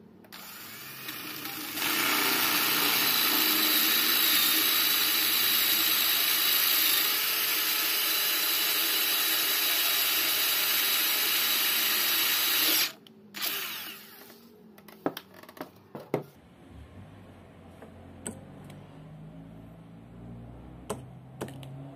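Cordless drill running under load, boring into the steel inside a rusty keyed drill chuck, steady for about eleven seconds before it stops. Afterwards come a few sharp metallic clicks and knocks.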